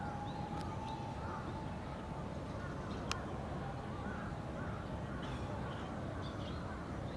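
Birds calling in short, repeated arched chirps over a steady background hum, with one sharp click about three seconds in.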